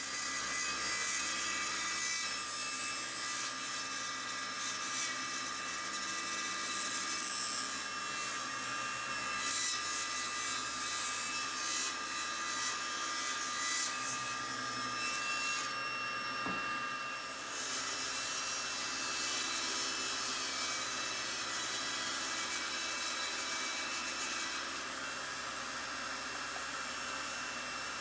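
Table saw running and ripping walnut boards, the blade cutting steadily through the wood over a constant motor hum, with a short break in the sound about sixteen seconds in.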